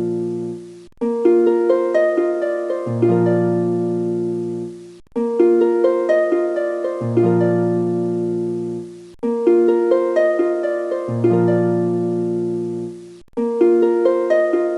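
Background music of plucked-string notes, a short melodic phrase repeating about every four seconds with a brief break between repeats.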